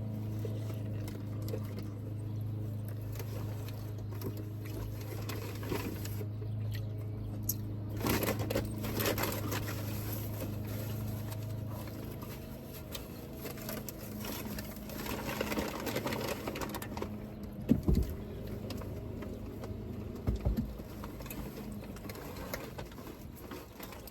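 Eating sounds: chewing and the rustle of sandwich wrappers, over a steady low hum that stops about halfway through. A couple of short knocks come near the end.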